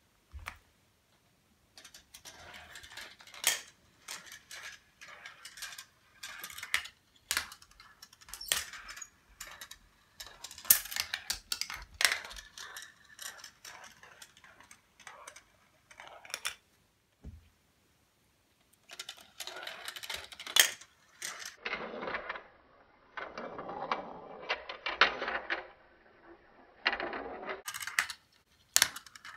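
GraviTrax marble run in action: marbles rolling along plastic track pieces and metal rails, with many sharp clicks and clatters as they drop through the elements. There is a short quiet pause a little after the middle, and a longer, lower rolling sound about two-thirds of the way through.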